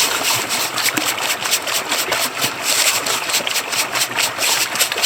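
Gravel rattling and swishing in a hand-held gem sieve shaken rapidly back and forth, a steady rhythm of several strokes a second.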